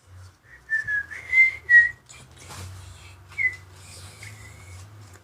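A person whistling a few short notes: a quick run of notes in the first two seconds and one more about three and a half seconds in, with light handling rustle and clicks between.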